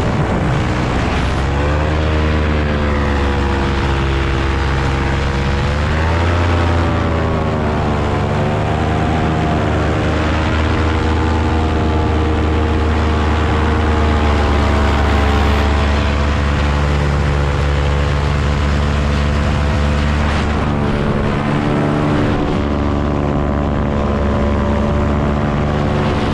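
Paramotor engine and propeller running in flight, heard close up from the pilot's frame, with wind noise. Its pitch drops just after the start, climbs again about six seconds in, then holds fairly steady with slight wavering.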